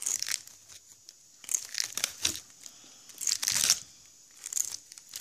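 Synthetic doll hair being combed in a series of short, scratchy strokes, about one a second.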